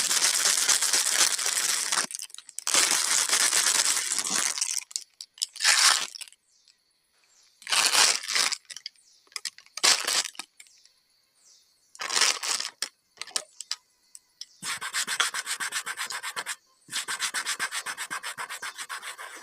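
A small pet chewing and gnawing food close to the microphone, in rasping, crunching bursts with short pauses; the last few seconds are a fast run of gnawing ticks.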